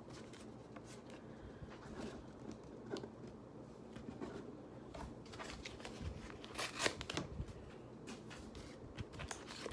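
Pokémon trading cards and plastic packaging handled at the table: faint rustling and crinkling, with a few sharper plastic crackles about two-thirds of the way in.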